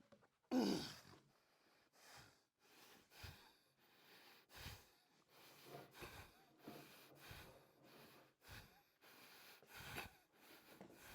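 A man's heavy breathing from physical exertion, in repeated short breaths, with a louder grunt falling in pitch about half a second in.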